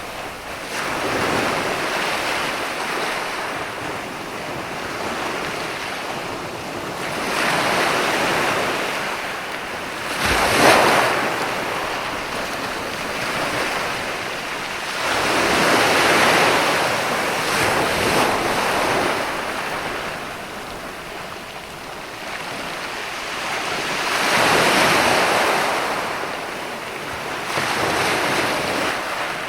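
Ocean waves breaking and washing onto shore, each swell rising and falling every few seconds, with one sharper crash about ten seconds in.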